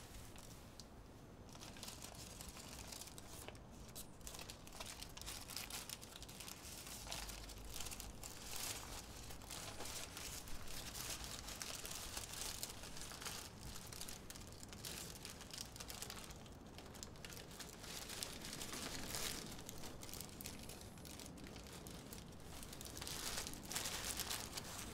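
A wrapper being crinkled and crumpled in someone's hands, in irregular crackling bursts that come and go, loudest near the end.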